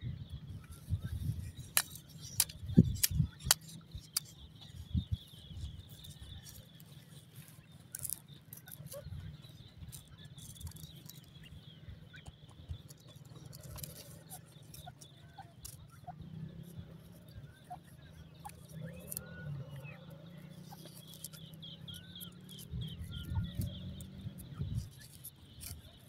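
Grey francolins scratching and pecking in dry soil: scattered sharp clicks and scrapes, loudest a few seconds in, over a steady low rumble and a constant high pulsing in the background. A few faint chirps come in the second half.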